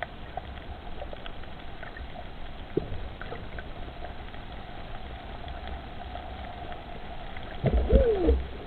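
Underwater ambience picked up by the camera: a steady hiss with scattered faint clicks and a low rumble. Near the end a louder, muffled voice-like sound rises and falls in pitch over a low rumble.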